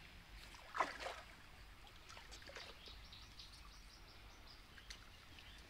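Faint splashing of water as a catfish thrashes in the shallows at the bank's edge, with a sudden splash about a second in and a few bird chirps.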